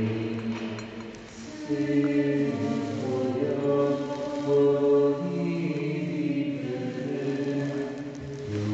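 A church hymn sung slowly by voices, in long held notes that move step by step in pitch.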